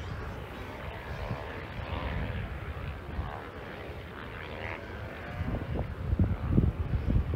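Wind buffeting the microphone in irregular gusts, strongest near the end, over the faint steady hum of a distant pickup truck's engine crawling along the trail.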